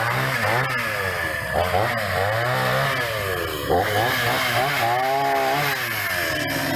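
Two-stroke chainsaw engine being revved up and down over and over, its pitch climbing and dropping with each blip of the throttle.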